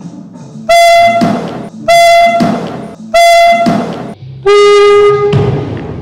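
Handheld canned air horn blasting four times at close range: three short, identical blasts about a second apart, then a longer, lower-pitched blast.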